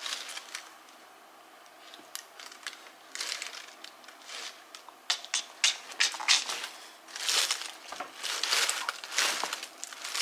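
Handling noise: irregular rustling and crinkling as a pair of sneakers and their wrapping are moved about close to the microphone, quiet at first and busier from the middle on.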